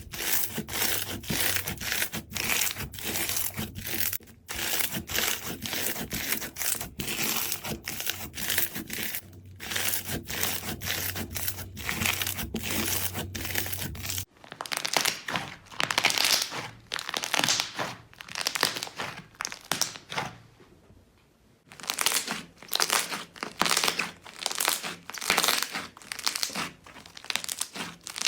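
Slime being squeezed, pressed and poked by hand: a rapid, uneven run of sticky clicks several times a second. A low hum drops out about halfway through, and the clicking pauses briefly about two-thirds of the way in.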